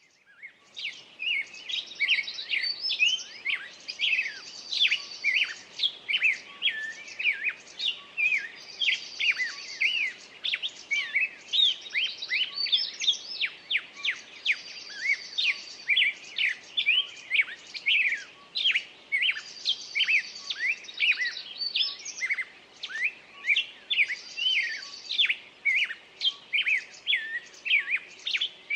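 A songbird singing without pause: rapid chirping notes, with a buzzy high trill coming back about every five seconds.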